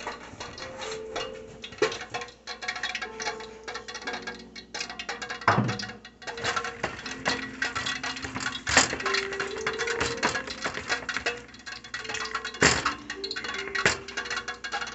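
Quiet background music with held, stepping notes, under repeated clinks and knocks of kitchen bowls and utensils as food is mixed.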